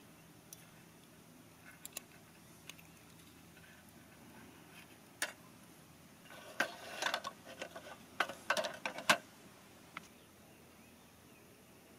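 Scattered light clicks and taps over a quiet background, then a short run of clattering clicks and knocks in the second half, the last knock the loudest.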